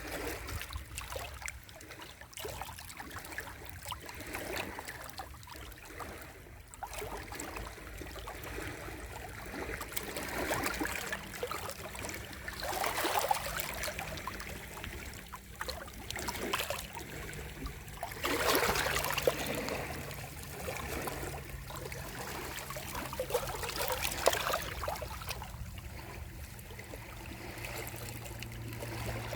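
Sea waves washing on the shore, rising and falling, with the loudest surges about halfway through and again about two-thirds in. A faint low steady hum joins in the second half.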